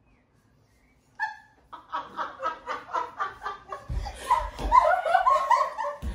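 A small group laughing, beginning about a second in with a quick run of ha-ha pulses, then louder overlapping laughter from several people, with a few low thumps midway.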